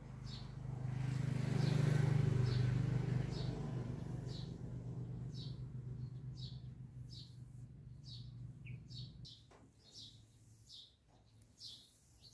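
A small bird chirping over and over, about two short high calls a second. Under it, a low engine hum swells to its loudest about two seconds in and fades out by about nine seconds, like a passing vehicle.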